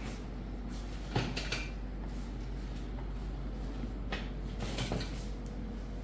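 A few short knocks and clicks, the loudest about a second in and more around four to five seconds in, over a steady low hum.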